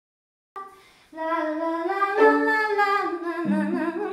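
Singing that starts about a second in: a woman's voice holding long, gliding notes, with a second, lower held note joining about halfway through.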